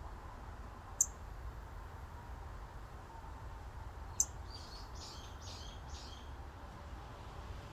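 A small songbird giving a sharp high chirp about a second in and another at about four seconds, followed by a short run of four quick notes. A low, steady wind rumble runs underneath.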